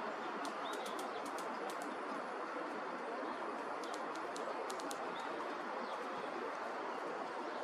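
Lesser spotted woodpecker pecking at dry wormwood stalks: faint, sharp clicks in short quick runs, near the start, about a second and a half in, and again around four to five seconds in, over a steady rushing background noise.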